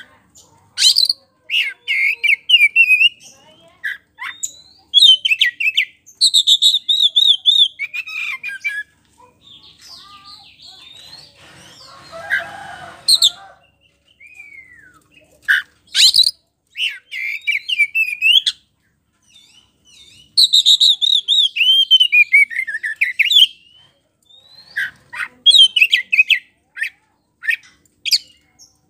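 Oriental magpie-robin of the white-bellied 'kacer poci' form singing loud, full song: phrases of rapid warbles, clear whistles and harsh notes, each lasting a few seconds, separated by short pauses.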